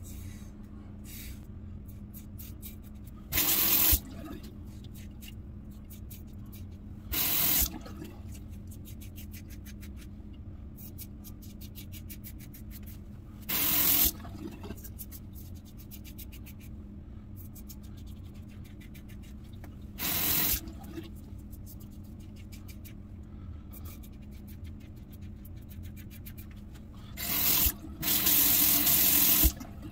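A double-edge safety razor with a fresh Tiger Platinum blade scraping through lathered stubble in short strokes, heard as a dense crackle of fine clicks. Every few seconds comes a short burst of running tap water as the razor is rinsed, with a longer rinse near the end.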